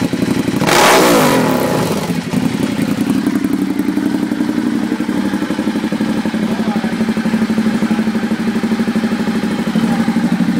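Motorcycle with an aftermarket canister exhaust, revved once briefly about a second in, then idling steadily with a fast, even exhaust pulse.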